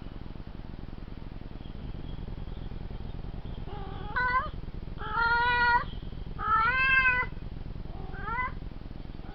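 Domestic cat meowing four times in drawn-out, wailing calls, the second and third the longest and loudest, the last rising in pitch.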